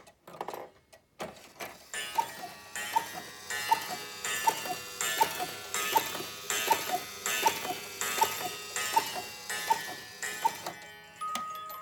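Cuckoo clock striking twelve: twelve two-note falling cuckoo calls, a little faster than one a second, each with a puff of air from the bellows. Near the end, after the last cuckoo, the clock's music box begins a tinkling tune.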